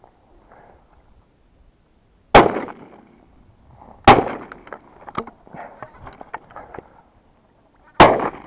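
Three shotgun shots fired at flying geese: two about a second and a half apart, then a third about four seconds later, each one ringing out and fading.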